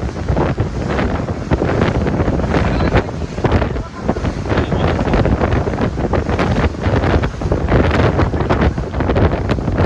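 Wind buffeting the microphone in loud, gusty rumbles that rise and fall unevenly.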